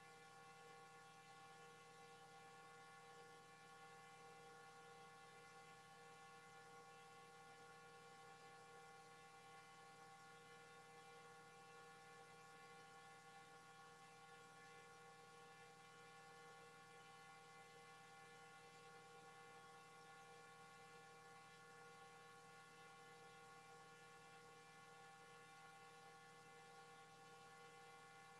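Near silence with a faint, steady electrical hum of several even tones, unchanging throughout.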